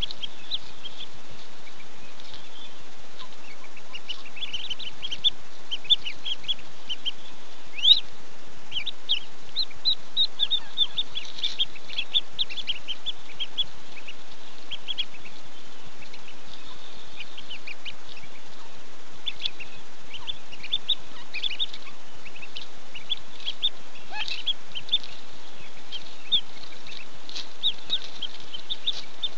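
Mallard ducklings peeping in the nest: many short, high-pitched peeps in quick runs, with a lull in the middle, over a steady hiss.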